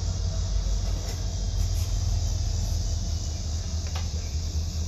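A steady low rumble, with a faint click about a second in and another near the end as the engine's inner clutch housing is handled.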